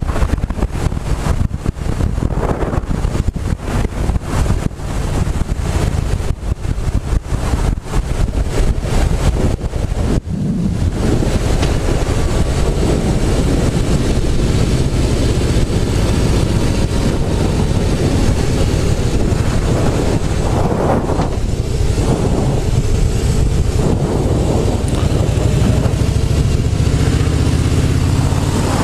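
Wind buffeting a helmet boom mic while riding a Harley-Davidson Softail Slim, the motorcycle's V-twin engine running underneath. The buffeting is choppy for about the first ten seconds, then settles into a steadier rush of wind and engine.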